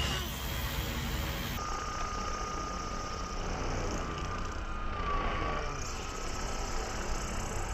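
FlyWing FW450 V3 electric RC helicopter in flight: a steady high motor and gear whine over rotor and wind rumble, dipping briefly in pitch about five seconds in.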